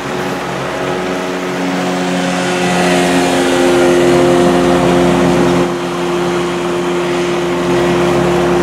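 Outboard motor running at a steady pitch as the boat travels, with a rush of water and wind over it.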